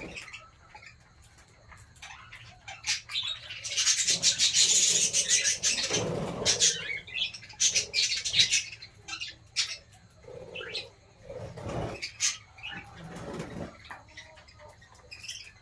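Small birds chirping, with a burst of wing-flapping and rustling a few seconds in and scattered small clicks throughout.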